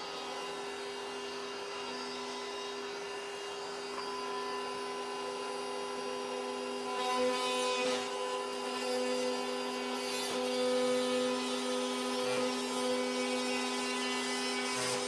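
A power tool running steadily while cutting through drywall, with rasping cutting noise swelling several times in the second half.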